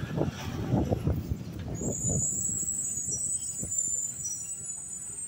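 Mack LR garbage truck running, a low steady rumble with irregular bumps. A thin high steady tone joins about two seconds in.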